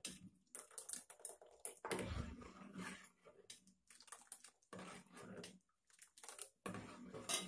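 Steel ladle stirring coconut milk in an aluminium pot: faint, irregular clicks and scrapes of the ladle against the pot, with the liquid splashing as ladlefuls are lifted and poured back.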